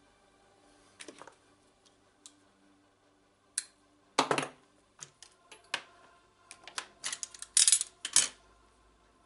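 Small hard objects being handled, clicking and clattering: scattered single clicks, a louder knock about four seconds in, and a quick run of rattling clicks near the end.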